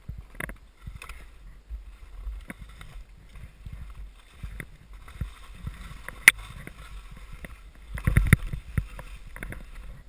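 Skis swishing and thudding through deep powder snow on a fast descent, with wind rumbling on the camera's microphone. A sharp click comes about six seconds in, and a louder run of thumps around eight seconds.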